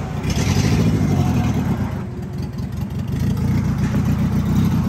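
Engine idling with a choppy, uneven lope that sounds cammed, a little quieter in the middle.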